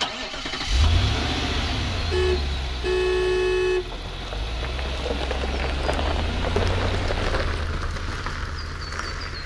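A van engine running with a low steady hum while the horn toots twice, a short toot about two seconds in and a longer one about a second later. A few faint high chirps come near the end.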